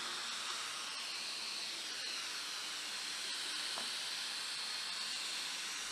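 Steady, faint hiss with no clear event, broken only by a couple of faint ticks.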